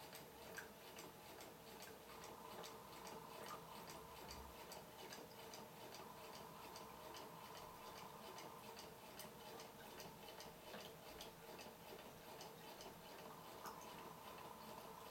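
Quarter-scale Rider-Ericsson hot air pumping engine running slowly, its moving parts giving a faint, even ticking of several clicks a second.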